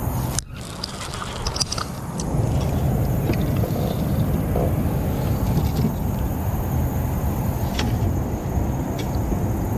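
A small largemouth bass is reeled to a boat and swung out of the water, with a few sharp clicks and splashes. A steady low rumble runs underneath and grows louder about two seconds in.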